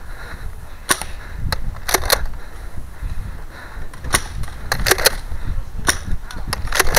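Spring-powered Nerf blasters firing foam darts: about ten sharp snaps, spaced irregularly, some in quick pairs.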